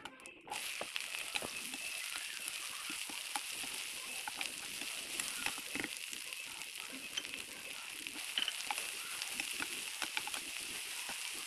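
Cumin seeds and chopped okra sizzling in hot oil in a kadai, a steady hiss that starts suddenly about half a second in, with scattered clicks and scrapes from a spatula stirring.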